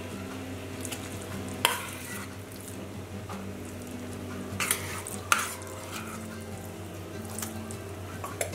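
Sugar syrup bubbling softly in a nonstick pan while a spoon stirs and breaks up a lump of khoa in it, with a few sharp taps of the spoon against the pan.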